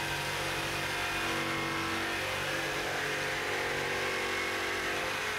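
A steady mechanical drone, like an engine or machine running, with several held tones over an even hiss and no change in pitch or level.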